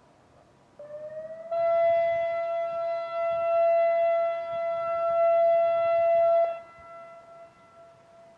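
Federal Signal 2001-SRN electronic siren sounding a short steady tone. A slightly lower note starts about a second in and steps up half a second later to a higher steady note. The tone cuts off after about five seconds, and its echo lingers faintly afterward.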